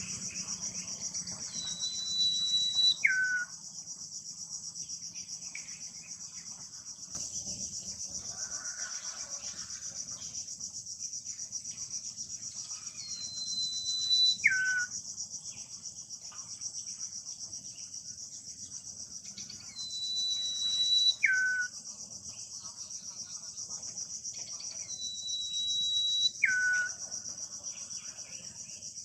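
Common iora (sirtu) calling four times, several seconds apart: each call is a long, level, high whistle ending in a short, sharp downward note, the loudest sound here. A steady high drone of insects runs underneath.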